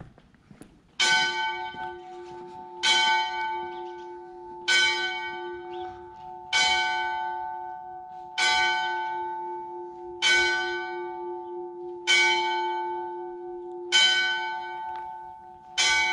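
A single church bell in a stone bell tower struck slowly and evenly, nine strikes about two seconds apart, the first about a second in. Each strike rings on, overlapping the next.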